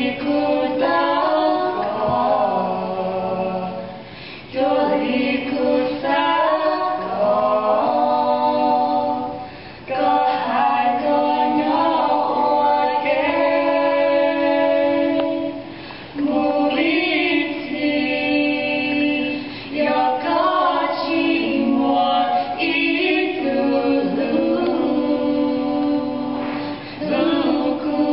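A small group of young women's voices singing a Hmong song together into microphones, unaccompanied, in sung phrases separated by brief breath pauses.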